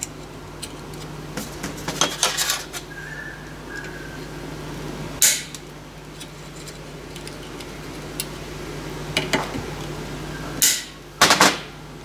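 Flush cutters snipping the protruding stems off small shop-made aluminium rivets: several separate sharp metallic snaps and clinks, the loudest about five seconds in and a pair near the end, over a steady low hum.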